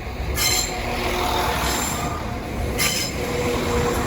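Train wheels squealing as the train runs slowly into the station platform: several high, steady squealing tones, with two short hissing bursts about half a second in and near the end.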